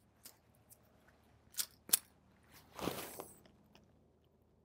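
Small clicks and a short scrape from a Trejo Model 1 .22 rimfire pistol being handled and readied to fire another burst. Two sharp clicks come close together about two seconds in, and a brief scraping rustle follows about a second later.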